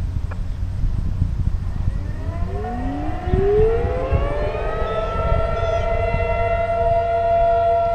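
Outdoor warning sirens starting up for their monthly test: the pitch rises from about two seconds in and levels off into a steady wail by about six seconds in. Wind rumbles on the microphone underneath.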